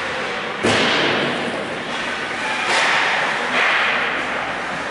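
Ice hockey play: three sharp cracks of sticks and puck, about half a second in and twice more around the three-second mark, each trailing off in the ice rink's echo.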